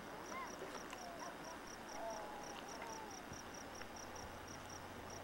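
A cricket chirping steadily, about five high, even chirps a second, with faint voices now and then.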